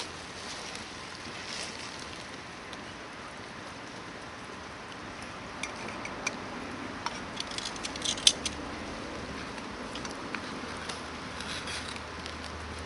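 Hardwood campfire burning with a steady hiss and scattered sharp crackles and pops, a cluster of them from about six to eight and a half seconds in, the loudest near eight seconds.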